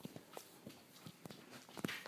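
A few faint, short clicks and taps scattered across the two seconds.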